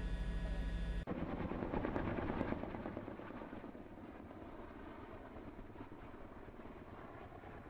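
Helicopter carrying a water bucket on a long line flying overhead, its rotor beating rapidly; the sound is loudest early on and then fades somewhat after about two and a half seconds. It is preceded by a second of steady droning hum that cuts off abruptly.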